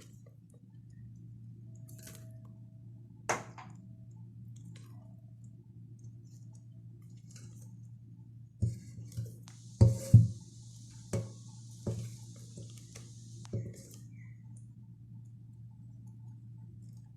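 Whipped chantilly cream being spooned out of a bowl onto a cake: a utensil clicks once, then knocks and scrapes several times against the bowl, with a soft hiss in the middle, over a low steady hum.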